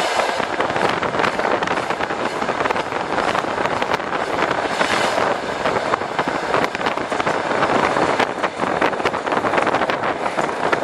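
Passenger train running across a railway bridge, heard at an open carriage window: a steady rush of wind with dense rattling and clatter from the wheels and carriage.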